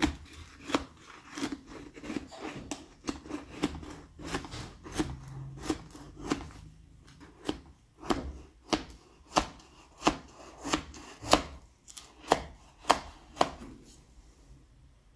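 A knife blade worked around the inside wall of a metal springform pan, scraping and knocking against the pan's side in a string of sharp clicks, about two a second, loosening a chilled dessert for unmoulding. The clicks stop near the end.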